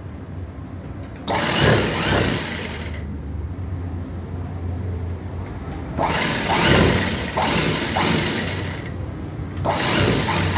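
Single-needle industrial sewing machine stitching fabric in three runs: one starting about a second in, a longer one of about three seconds from around six seconds, and another starting near the end. A low steady hum of the machine's motor carries on in the pauses between runs.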